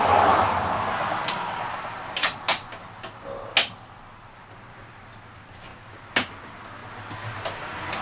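A scraping rustle, then a few sharp, separate clicks and knocks spread over several seconds, as a metal pry tool works the plastic retainer clip holding the grille of a 2003 VW Passat.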